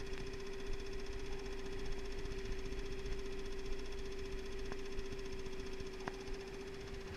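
Outboard motor running steadily at trolling speed, an even engine hum, with two faint ticks late on.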